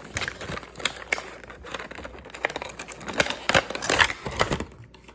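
Irregular rustling and sharp clicks of plastic packaging and a puzzle being handled and unpacked, busiest just before they stop near the end.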